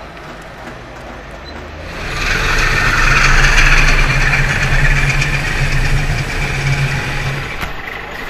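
Trabant's two-stroke twin-cylinder engine running as the car pulls away close past, getting loud about two seconds in and easing off near the end.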